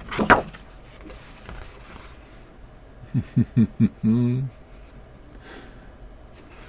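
A man's voice without words: a breath at the start, then about three seconds in a short chuckle of four quick notes followed by a brief hum.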